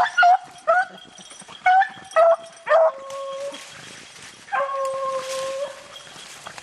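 Beagles baying as they run a rabbit's scent trail. A quick run of about six short, high yelps comes first, then one long drawn-out howl about two-thirds of the way through.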